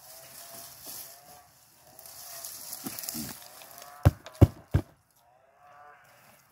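A large plastic plant pot is tipped and turned upside down with dry potato haulm and soil rustling, then three sharp thumps about a third of a second apart as the base of the upturned pot is knocked to loosen the root ball.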